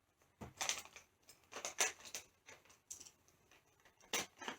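Packaging of a mystery pin blind bag crinkling and rustling in short, irregular bursts as it is handled and opened.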